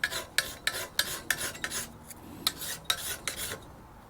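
Hand file worked along the edge of a new steel mower blade, scraping off the factory paint: quick rasping strokes about three a second, with a short pause near the end.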